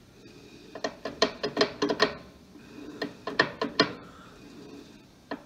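Manual lathe's speed and feed selector levers being shifted by hand, heard as two quick runs of clicks and clunks and then one more click near the end. The spindle speed is being set to 800 RPM and the feed to 12 thousandths per revolution.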